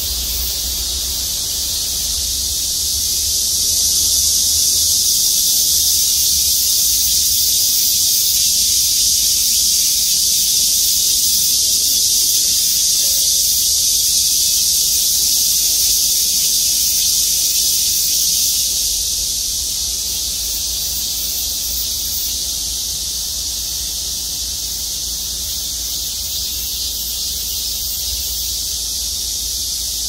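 Chorus of cicadas in the trees: a steady, dense, high-pitched buzz that swells louder a few seconds in and eases off a little after about eighteen seconds.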